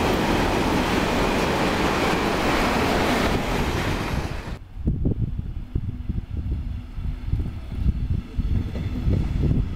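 Freight train of tank wagons rolling past at speed, a steady loud rushing of wheels on rail. About four and a half seconds in, the sound cuts abruptly to the lower, uneven rumble of an Intercity train's coaches running past.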